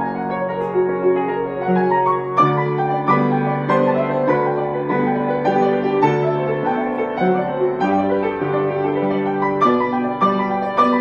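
Solo grand piano playing a slow Christmas carol arrangement: a melody over sustained chords, with new notes struck about every half second to second.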